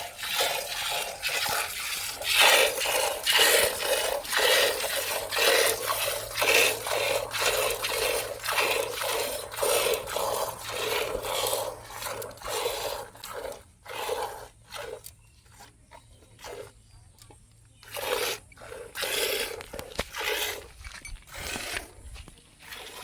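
Cow being milked by hand: jets of milk squirting into a pail, about two squirts a second. The squirts come thick and loud at first, then grow sparser and fainter in the last third.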